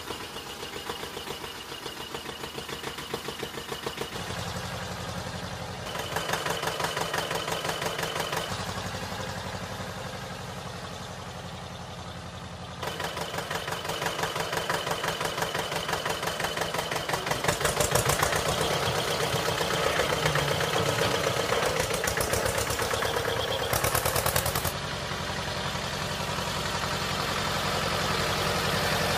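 A motor running with a rapid, steady rhythmic chugging, its level stepping up and down several times.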